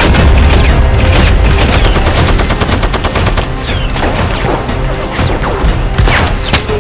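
Rapid automatic gunfire sound effects, with several descending whizzes of bullets flying past, over a film music score with a heavy low rumble.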